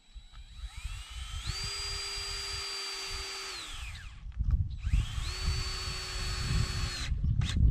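DeWalt 20V cordless drill driving screws into a wooden 4x4 post: two runs, each spinning up to a steady whine for about two seconds and then winding down, with a short pause between.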